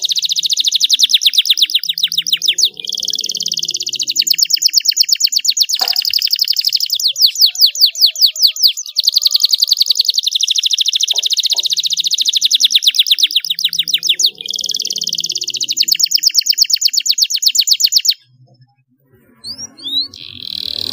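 Domestic canary singing: long, rapid trills of repeated high notes, switching to a new phrase every few seconds. The song breaks off about 18 seconds in, and a few short chirps follow near the end.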